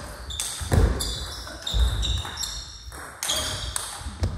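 Table tennis rally: the ball clicks off the bats and table, and the players' shoes squeak and thud on the sports hall floor, with short high squeaks and a few heavy knocks.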